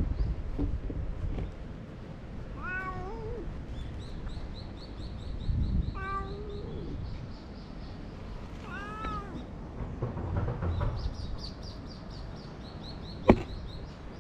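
Stray cat meowing three times, short calls about three seconds apart. A fast, high ticking chirp runs in the background, and a single sharp click sounds near the end.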